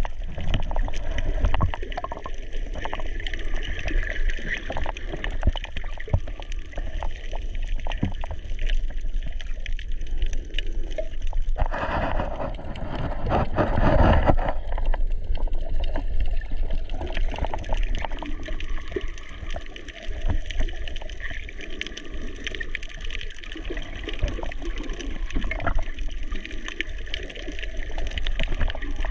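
Water noise picked up by a snorkeler's underwater camera: a steady muffled rush with frequent small clicks, and a louder surge of water lasting a couple of seconds about halfway through.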